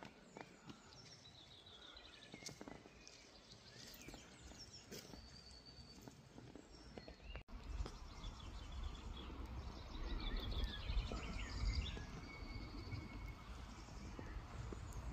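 Woodland songbirds singing, with many short chirps and trills overlapping throughout. After a brief break about halfway, a low rumble joins them.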